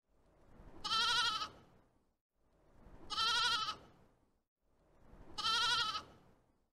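A sheep bleating three times, each a short, quavering bleat about two seconds apart.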